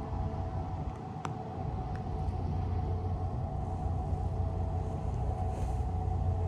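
Steady low rumble of a boat's engine, with a steady whine above it and a single sharp click about a second in.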